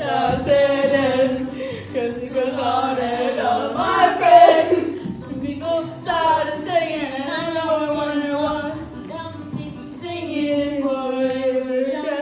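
A song with prominent singing, the melody carried by a voice over a steady low accompaniment.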